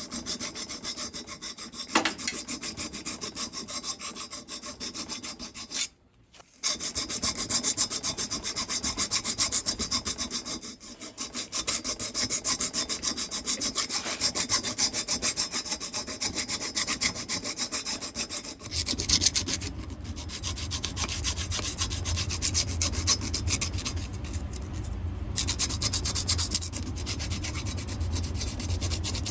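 Half-round hand file rasping back and forth in the intake port of a two-stroke engine cylinder, rounding off the port's square corners for porting. The scraping strokes run steadily, with a brief break about six seconds in.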